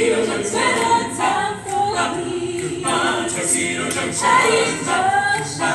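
Mixed choir of men's and women's voices singing together in harmony, phrases with held notes.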